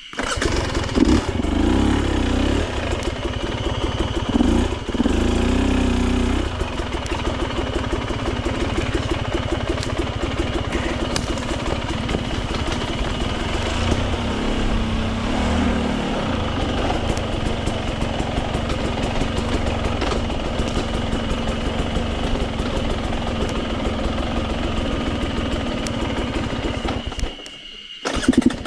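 Off-road dirt bike engine starting up, blipped a couple of times in the first few seconds, then running steadily. It drops away briefly about a second before the end and comes back loud.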